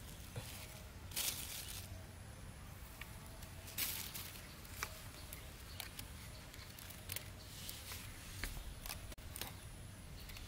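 Scattered light clicks and short rustles of thin bamboo sticks being handled, fitted together and pushed into dry dirt, a few each few seconds, over a quiet outdoor background.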